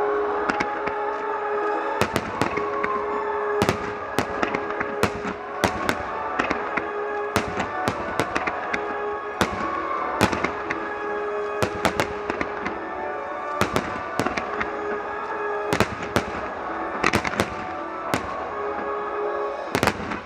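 Fireworks bursting in a starmine display: a rapid, irregular series of sharp bangs, some in quick clusters, over continuous music.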